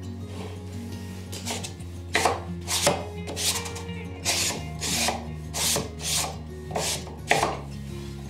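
Wooden blast-gate shutters being slid back and forth in their slots, wood rubbing on wood in a run of short strokes, about one every two-thirds of a second.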